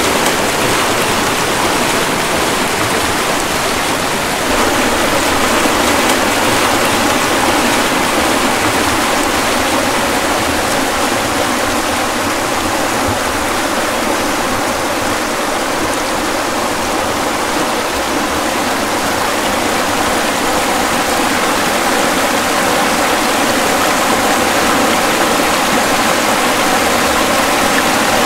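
Steady rush of flowing stream water, a continuous even hiss that gets slightly louder about four seconds in.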